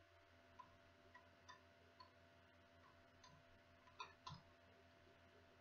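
Near silence with a few faint, scattered computer keyboard keystroke clicks as a word is typed.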